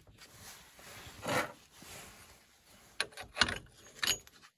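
Steel washer and pulley being slid onto an alternator's shaft by hand: a scrape about a second in, then a cluster of metal clicks and clinks near the end as the pulley seats.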